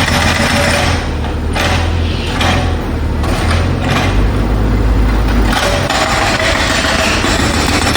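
Jackhammer breaking up the road surface with a rapid rattling hammering. It stops and restarts several times in short bursts in the middle, while a low engine drone carries on underneath.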